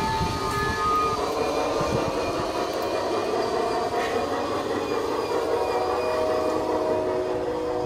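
Battery-powered G-gauge model train running along garden track close by: a steady whir and rattle of the motor and wheels on the rails. About six seconds in, a steady held chord of several tones starts over it.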